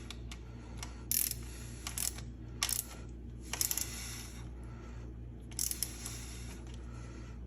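Ratchet wrench clicking in about five short bursts as the bolt holding a motorcycle gear shift lever is tightened, over a steady low hum.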